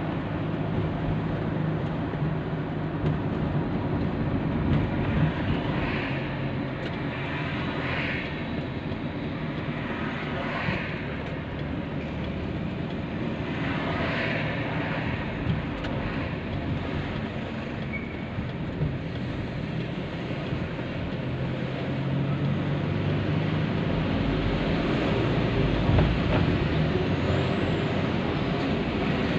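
Car driving on city streets, heard from inside the cabin: steady tyre and road noise over a low engine hum, with a few brief swells of hiss from passing traffic.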